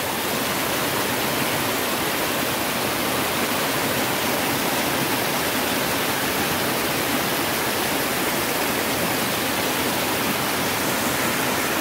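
Muddy floodwater rushing and foaming white down a narrow rock channel: a steady rush of white water from a creek in spate after heavy overnight rain.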